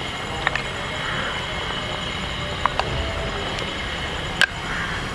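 Steady rumbling background noise with a few sharp clicks of a utensil against a metal vessel as garlic chutney is added to the chaat, the loudest click near the end.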